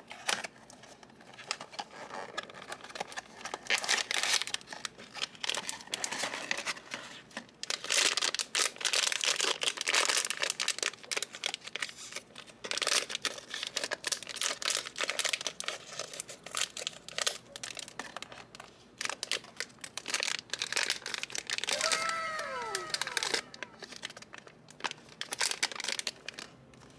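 Blind-box packaging being torn open and crinkled by hand: irregular crinkling and tearing of wrapper and box material. Late on there is a brief squeaky tone that slides downward.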